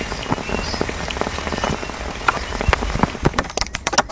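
Heavy rain falling, a steady wash with many separate drops tapping sharply on a surface.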